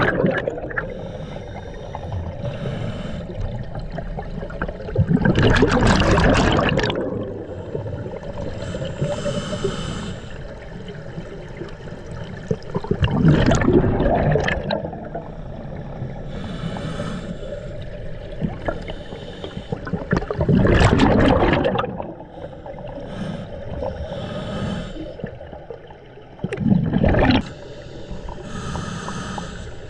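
Scuba diver breathing through a regulator underwater: four loud gushes of exhaled bubbles about every seven seconds, with fainter hissing inhalations through the regulator between them.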